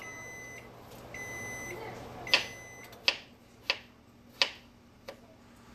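Microwave oven beeping that its cycle is done: two long, steady high beeps in the first two seconds. Then a knife chops strawberries on a cutting board, five sharp knocks about two-thirds of a second apart.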